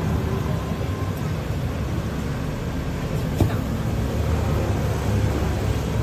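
Steady low rumble of a busy night-market street beside a charcoal grill stall, with faint voices in the background and a single sharp click about three and a half seconds in.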